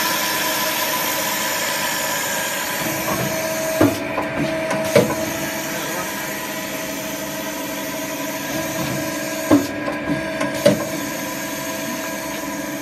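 Hydraulic tube chamfering machine running: a steady motor and pump hum with a hiss, broken by a few sharp knocks of the machine's working strokes.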